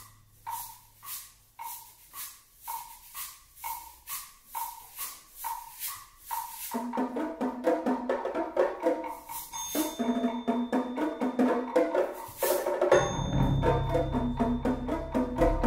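Percussion ensemble playing: a steady ticking pulse of about two strokes a second, joined after about seven seconds by busier pitched mallet parts, with a low rumble entering near the end.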